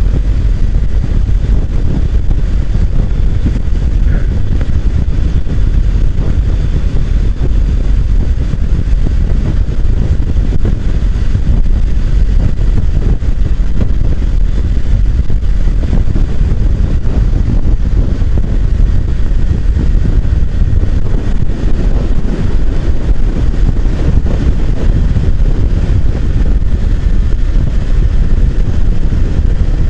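Motorcycle riding at road speed: a loud, steady rumble of wind buffeting the microphone over the engine and road noise.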